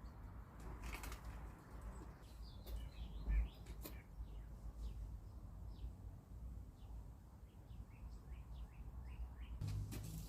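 Small birds chirping repeatedly in short notes, with a few sharp knocks, the loudest about three and a half seconds in, over a low steady rumble.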